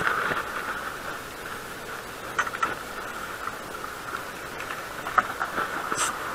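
Baitcasting fishing reel being cranked, a steady whir, as a small fish is reeled up to the surface, with a few light clicks about two and a half, five and six seconds in.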